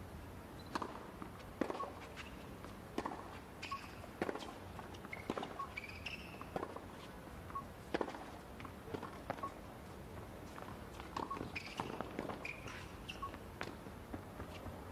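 Faint sounds of a tennis point on a hard court: ball bounces and racquet strikes as scattered sharp knocks, with a few short high shoe squeaks, over a hushed arena.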